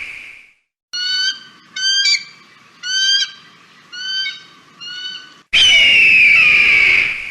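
Kite calling: the end of a long shrill call fading out, then five short whistled calls about a second apart, then another long, loud, shrill call starting about five and a half seconds in.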